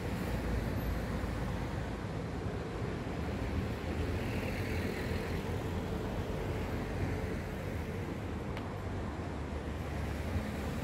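Road traffic on a city street: cars driving past over a steady low rumble, with a van passing close about halfway through.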